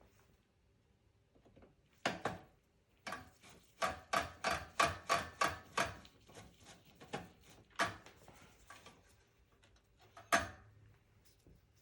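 A run of sharp clicks and taps, about three a second for a couple of seconds midway, with a single loud click near the end: screwdriver and screw handling on the metal chassis and motherboard of a desktop computer being taken apart.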